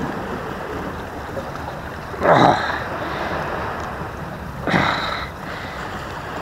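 Sea washing against the rocks and wind on the microphone, a steady rush with two louder surges, about two and five seconds in.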